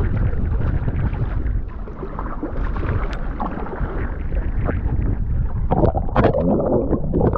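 Sea water sloshing and gurgling against a kayak hull, with wind on the microphone; the water sounds grow louder and busier about six seconds in.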